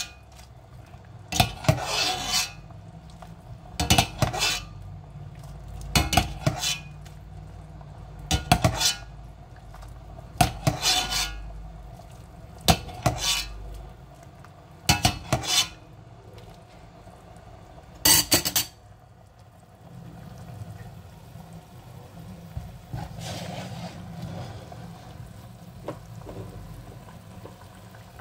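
Metal ladle clinking against a stainless steel pot about every two seconds, as broth is scooped and poured over a whole chicken. The clinks stop a little past halfway, leaving a quieter steady noise.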